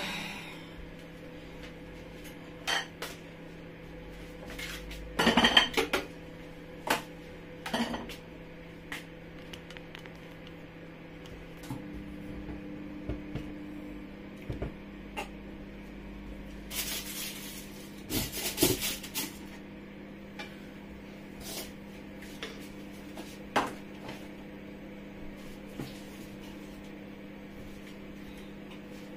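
Cooking-pot and utensil clatter: scattered knocks and clinks of a wooden spatula and pans at a frying pan, the loudest cluster about five seconds in, with a brief hiss about two-thirds of the way through, over a steady low hum.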